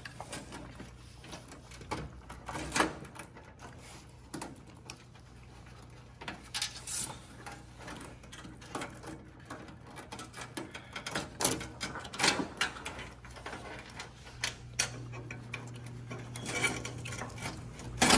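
Scattered light clicks, taps and rustling of a power supply's cables being handled and routed through a PC case, over a steady low hum.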